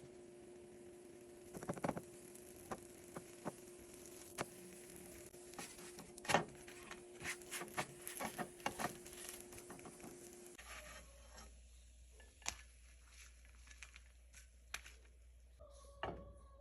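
Scattered light taps, clicks and knocks of things being handled, over a steady hum that cuts off about ten and a half seconds in; a louder knock near the end.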